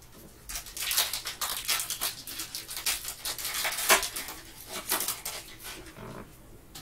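Foil wrapper of a basketball trading-card pack crinkling and tearing as it is ripped open and the cards are pulled out, an irregular rustling that starts about half a second in and dies down near the end.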